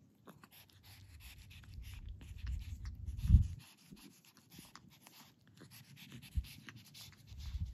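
Kitten lapping milk from a stainless steel dish: rapid soft wet clicks of its tongue, with heavy breathing through its nose. A low rumble swells and peaks about three and a half seconds in, and again near the end.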